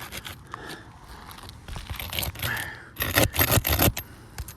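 Asphalt roof shingles being pried up, their adhesive seal strip breaking loose with scraping and crackling. Scattered scrapes give way to a dense, loud burst of crackling about three seconds in.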